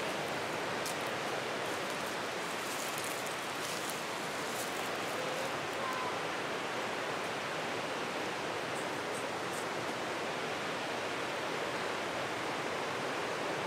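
Mountain river rushing close by: a steady, even rush of flowing water.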